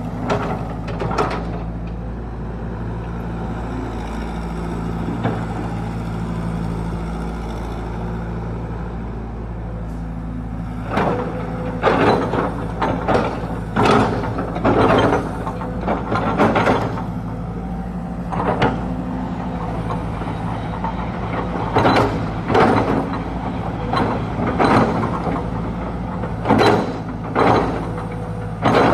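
Caterpillar E120B crawler excavator's diesel engine running steadily. From about ten seconds in come two runs of loud metallic clanks and squeaks, about one a second, from the working machine.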